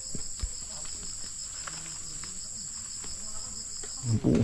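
A steady, high-pitched insect chorus, cricket-like, with a pulsing lower trill under it. Faint rustles and light clicks come from the bean vines being handled, and a short, louder low sound comes near the end.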